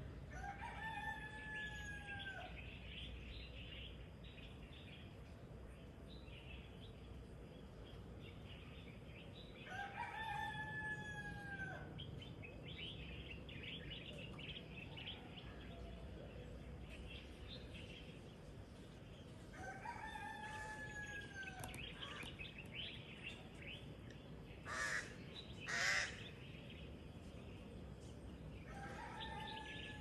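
A rooster crowing four times, about ten seconds apart, each crow held and then falling away, over steady chirping of small birds. Near the end, two short loud noises come about a second apart and are the loudest sounds.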